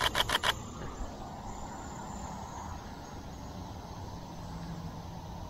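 A quick burst of about half a dozen camera shutter clicks from a Pentax K-3 Mark III DSLR in continuous shooting, ending within the first second. After it comes a steady, quiet outdoor background with a faint low hum.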